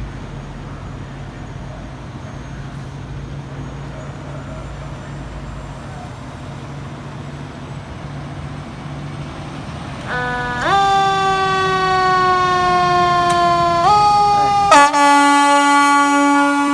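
Low steady engine rumble from a fire apparatus, then about ten seconds in its siren starts, jumping up in pitch and slowly sagging, then jumping up again. A few seconds later the air horn cuts in loudly and holds a steady, rich blast to the end, with the siren still sounding beneath.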